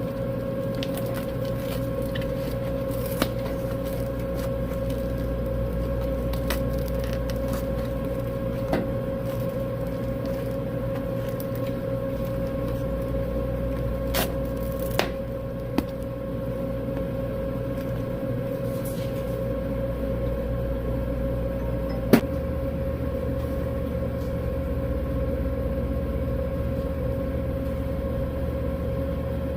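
Steady electric machine hum with a constant tone and a low rumble, broken by a few light clicks and taps; the low rumble shifts about 22 seconds in.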